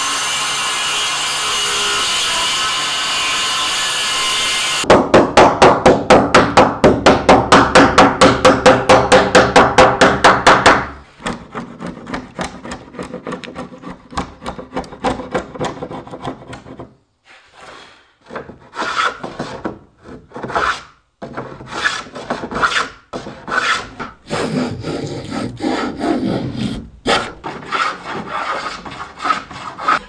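Circular saw running through a plywood board for about the first five seconds. Then come about six seconds of loud, fast, even back-and-forth strokes, about four a second. After that a chisel pares and scrapes along the board's edge in short, irregular strokes with brief pauses.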